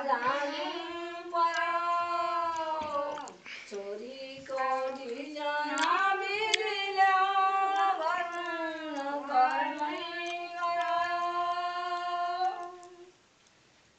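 Women singing unaccompanied in long held, gliding notes, pausing briefly a few seconds in and stopping near the end.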